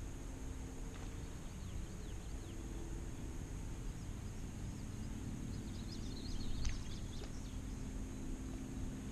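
Steady low outdoor background noise with a few faint bird chirps about one to two seconds in, and a short, louder noise about six and a half seconds in.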